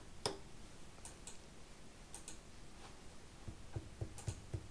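Faint clicking and ticking as a red Axiom clamp on a CNC fixture plate is handled, with clicks singly and in close pairs. Soft low thumps come about four a second near the end.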